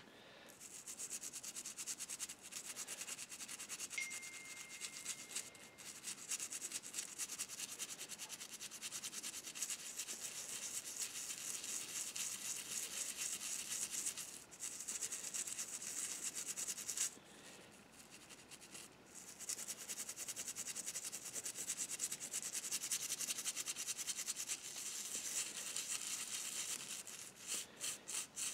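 Toothbrush scrubbing a tarnished brass model locomotive tender truck coated in cleaner paste: a rapid, steady bristly scratching that stops briefly about halfway and again for a couple of seconds a little later. The scrubbing is lifting the tarnish off the brass.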